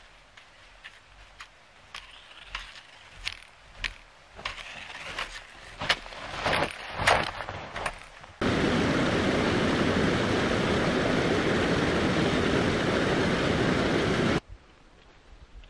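Boots crunching in snow with the clicks of trekking poles, step by step, growing louder as the hiker comes close. About eight seconds in, a loud steady rushing noise starts suddenly, runs for about six seconds, and cuts off just as suddenly.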